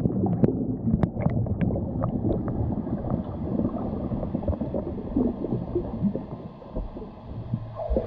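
Muffled underwater rumbling of moving water, heard through a GoPro's waterproof housing on a swimming snapping turtle's shell, with a scatter of sharp clicks and ticks in the first couple of seconds.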